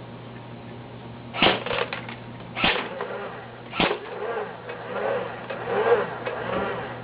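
Well R6E M4A1 airsoft rifle fired on semi-automatic: three sharp single shots about a second and a quarter apart, with a few faint clicks just after the first.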